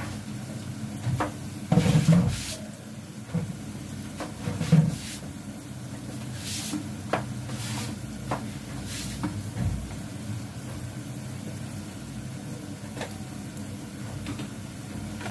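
Sliced onions frying in oil in a steel pot on a gas stove, under a steady low hum, with several knocks and clatters of kitchen utensils, the loudest about two and five seconds in.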